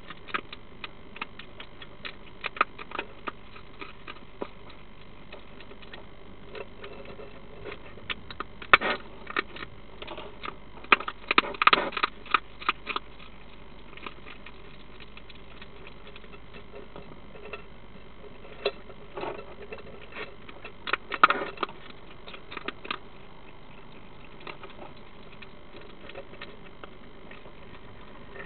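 European hedgehog chewing and crunching hard food, an irregular run of small clicks with louder, denser bouts of crunching from about 8 to 13 seconds in and again around 21 seconds.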